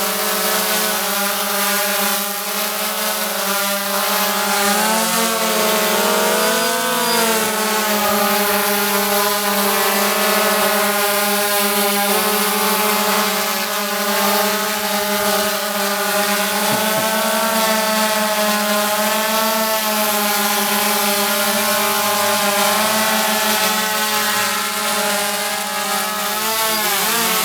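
Quadcopter drone hovering, its propellers giving a steady buzz of several tones whose pitches waver as the motors adjust to hold it in place in the breeze. Near the end the tones dip and rise sharply.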